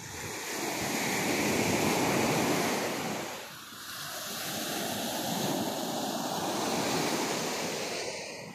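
Sea surf breaking and washing up a sandy beach in two long swells, the first peaking about two seconds in and the second about seven seconds in, with a brief lull between them.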